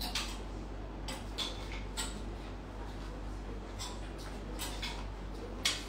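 Clothes and hangers being handled, with scattered light clicks and rustles about once a second, over a steady low electrical hum.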